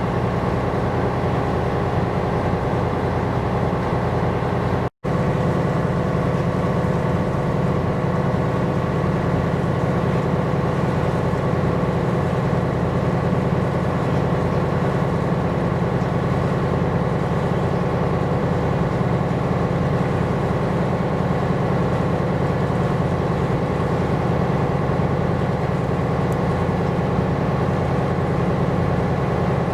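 Ship's engine running with a steady, even drone, with a brief dropout to silence about five seconds in.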